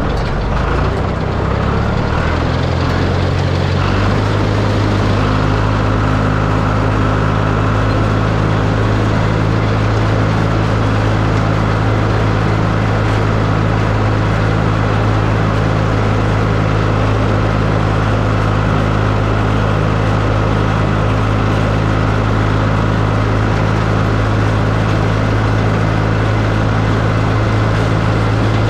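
John Deere 820 tractor engine running steadily while cutting hay with a haybine. The engine note changes about four seconds in, then holds at a steady pitch.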